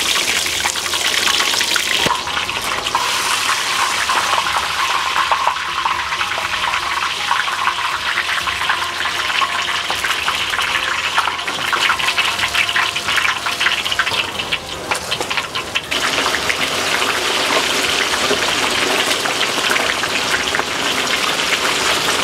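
Crucian carp deep-frying in a large wok of hot oil: a steady sizzle, thick with crackling pops in the middle. The fish are frying until the water in them has boiled off.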